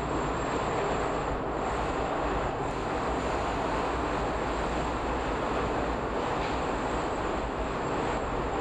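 Subway train running steadily through a tunnel: a constant rumble and rush of wheel and rail noise.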